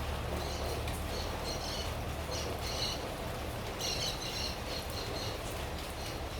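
Steady rain falling on a rosemary bush, with a small bird chirping in short runs of high notes several times over it.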